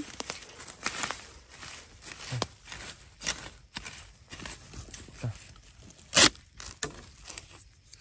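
Irregular sharp strikes of a digging spade chopping through the base of a young bamboo shoot, about seven blows with the loudest about six seconds in, over the rustle of dry bamboo leaves.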